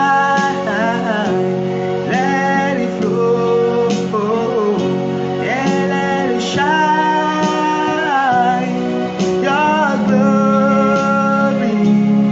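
Worship song music: guitar and steady held chords under a gliding melodic line, with singing but no clear words.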